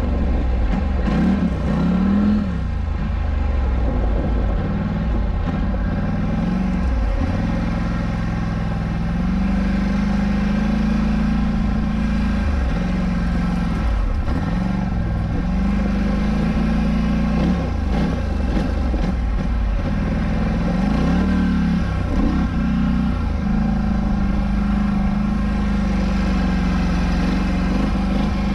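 Polaris Scrambler 1000 ATV engine under way, holding a steady note for stretches and dropping and climbing back up several times as the throttle is eased off and reapplied.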